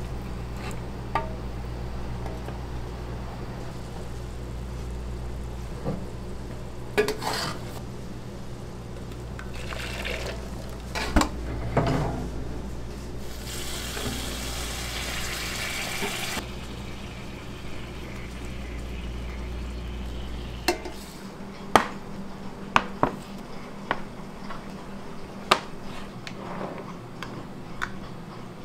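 Kitchen cookware handled over a steady low hum. A ladle clinks against a steel stockpot, and sauce is poured from the ladle into a steel hotel pan with a hiss of about three seconds midway. The hum stops about two-thirds of the way in, and sharp clinks follow from a spoon against a glass jar.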